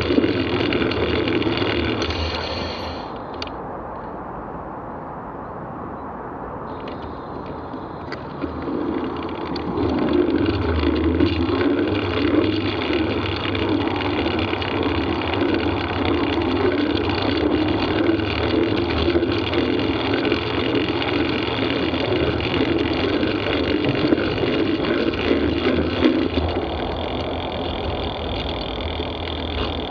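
Bicycle in motion on a path, heard through a bike-mounted microphone: a steady rumble of tyre and wind noise. It drops quieter for a few seconds near the start, then comes back louder and holds.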